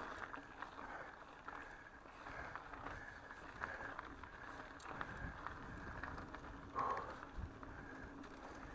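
Mountain bike rolling fast over a dirt trail: steady tyre and riding noise with small clicks and rattles from the bike, and one louder clatter about seven seconds in.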